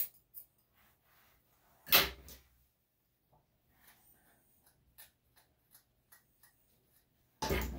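Grooming scissors snip once, then a single loud clunk about two seconds in as the scissors are set down on the floor. Faint ticks follow as a metal comb is drawn through a Maltese's coat, and a loud scratchy rasp starts near the end.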